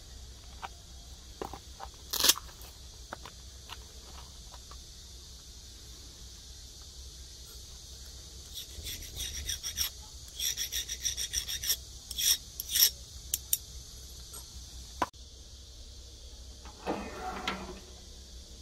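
A hardness-test file scraped across the edge of a small steel knife blade in a run of quick strokes about halfway through, checking whether the blade has hardened. A sharp click comes about two seconds in.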